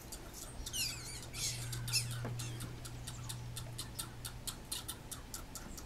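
Squirrel giving a steady run of sharp clicking alarm calls, about four a second, with a couple of squeaky falling chirps and a short scratchy rustle in the first two seconds.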